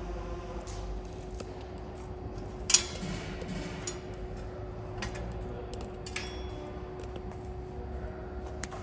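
Scattered metallic clinks and knocks from steel parts of a conical twin-screw extruder's gearbox coupling being handled, with one sharper clank about three seconds in. A steady hum runs underneath.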